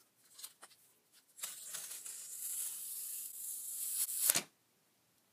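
Plastic shrink wrap being torn and peeled off an iPad Mini 4 box: a few small crinkles, then a steady hissing rip for about three seconds that ends in a loud crackle and stops suddenly.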